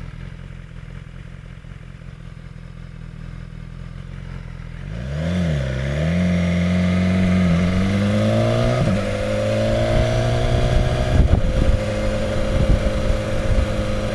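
BMW S1000XR's inline-four engine ticking over at a standstill, then revving up as the bike pulls away. Its pitch rises and drops back at each gear change, then settles into steadier running with gusty wind noise over it.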